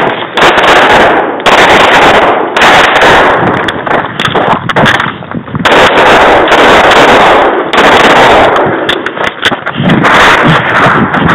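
Rapid strings of shots from a Smith & Wesson M&P semi-automatic pistol fired by the camera wearer, each string running together into loud, overloaded stretches with short pauses between them.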